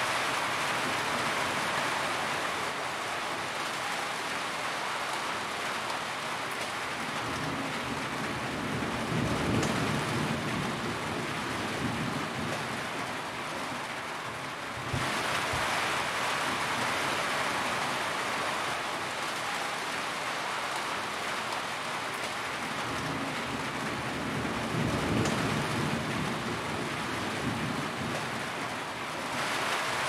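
Steady rain drumming on a corrugated metal roof, a dense even patter. A low rumble swells up twice, and the rain noise steps up abruptly about halfway.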